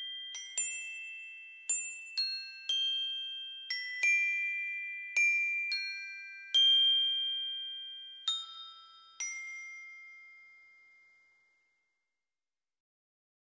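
Background music of slow, sparse bell-like struck notes, each ringing and fading, played one or two at a time; the last notes sound about nine seconds in and die away by about eleven and a half seconds.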